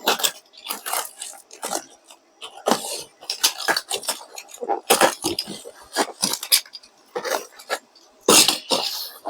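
Packing material and kit parts being handled and unwrapped: irregular rustles, scrapes and light clinks.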